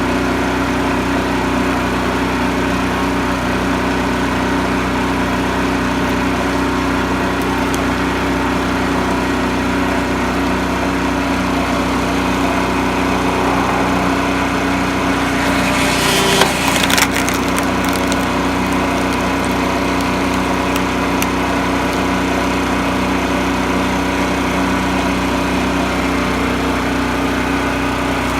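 Hydraulic log splitter's small gas engine running steadily, with wood cracking and splitting sharply a little past halfway as the wedge goes through a log.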